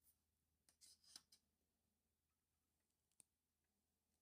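Near silence, with a few faint small clicks.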